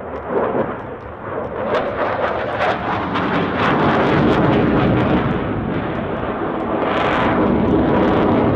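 A Dassault Rafale fighter's twin jet engines as it flies overhead: a loud, rough jet noise with crackling. It grows louder about three seconds in and stays loud.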